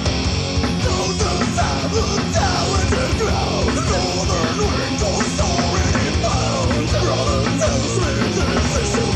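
Lo-fi demo-tape recording of a doom rock band playing, with guitars, bass and drums. A loud vocal line comes in over them about a second in and carries on.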